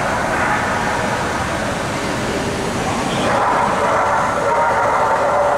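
Steady hubbub of many voices echoing in a large indoor hall, with no single voice standing out.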